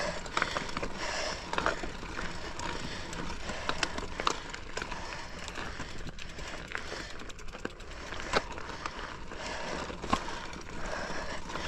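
Mountain bike climbing a rocky trail: tyres rolling and crunching over rock and gravel, with scattered clicks and rattles from the bike.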